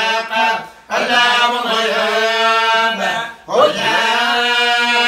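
A man chanting a religious recitation in long, held melodic phrases with ornamented turns, pausing briefly for breath about a second in and again past the three-second mark.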